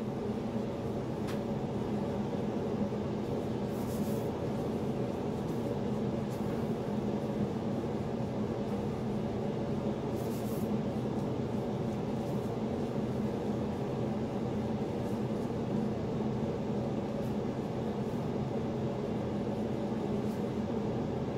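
Steady machine hum with a low drone and an even hiss over it, unchanging throughout; faint brief hisses come twice.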